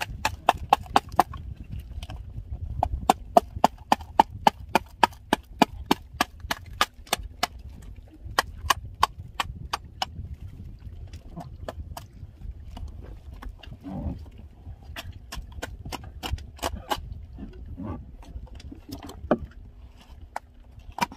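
Rapid knocking on a boat's hull in bursts of about three knocks a second, from a freshly landed tuna thrashing its tail in the bottom of the boat.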